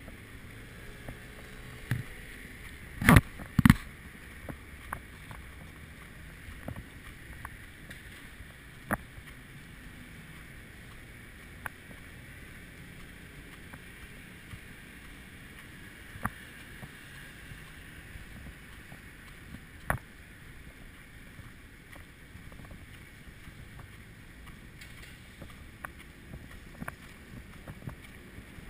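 Steady muffled outdoor rumble picked up by a moving GoPro action camera, broken by sharp knocks on the camera: two loud ones a few seconds in and a few fainter single ones later.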